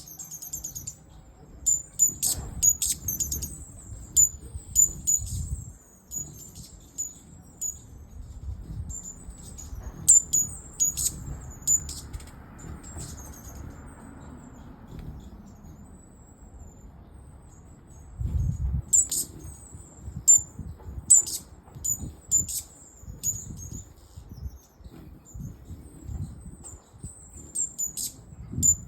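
Green-backed firecrown hummingbirds giving rapid, very high-pitched chip and twitter calls in repeated clusters, the sharp calls of birds defending territory. The calls thin out for a few seconds past the middle, then resume.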